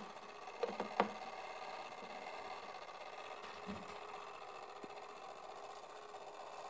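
Spring-driven clockwork of an antique fly trap running with a steady mechanical whir. Two sharp knocks come about a second in.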